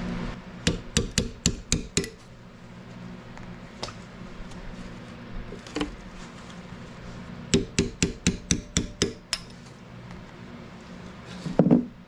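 Hammer striking a punch against the metal shoulder of an old toe link bushing to break it off: two quick runs of sharp metallic taps with a few single taps between, then a heavier knock near the end.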